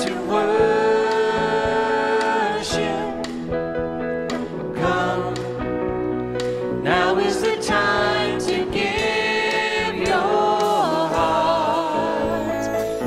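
Church worship band performing a praise song: several vocalists singing long held notes over piano, drums and guitar.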